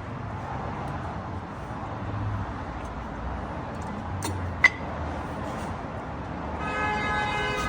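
Metal parts clinking in a workshop as brake pads are fitted back onto a car's front brake, with one sharp, ringing clink about two-thirds of the way in. A steady, horn-like tone sounds for about a second near the end.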